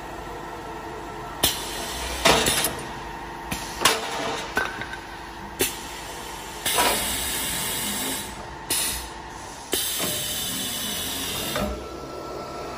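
Automatic CNC wood-turning lathe running with a steady hum, broken by repeated sharp hisses and two longer stretches of hissing about halfway through and near the end.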